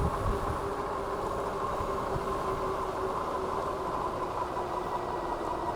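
Dual hub motors of a Philodo H8 all-wheel-drive e-bike whining steadily under way, a constant two-tone hum over road and wind noise.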